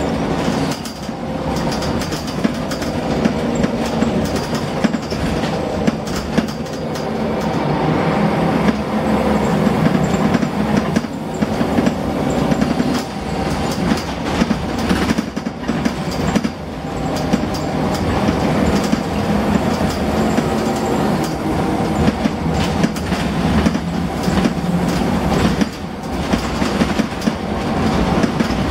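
Scania L94UB bus's nine-litre five-cylinder diesel heard from inside the saloon, pulling hard while under way, its note climbing and dropping back several times as the ZF automatic gearbox changes gear. The body and fittings rattle throughout, and the engine sounds a bit rough.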